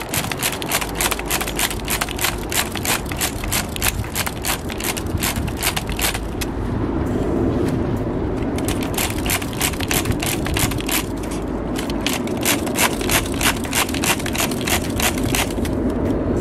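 Fast, regular clicking and rattling, about five clicks a second, with short pauses, from a nitro RC car's glow engine being primed by hand before starting.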